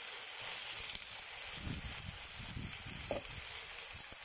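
Diced potato, onion and chicken fillet sizzling as they fry in hot oil and butter in a cast-iron kazan, a steady hiss, with some low rumbling around the middle and a single click about three seconds in.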